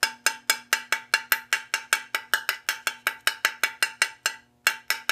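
Metal fuel tank of a Coleman 238B lantern tapped rapidly, about six taps a second, then a short pause and two more taps near the end. Each tap rings clearly, as a sound test for internal corrosion: a corroded tank gives a dull thud, and this one shows surface rust but no corrosion.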